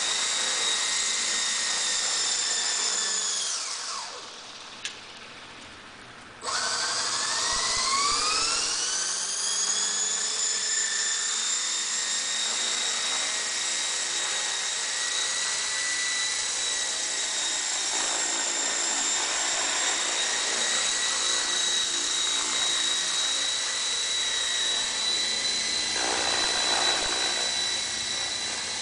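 Model RC helicopter's motor and rotor running with a steady high whine. About four seconds in the whine falls away. It returns suddenly a couple of seconds later, rises in pitch for several seconds as the rotor spools up, then holds steady while the helicopter hovers and climbs.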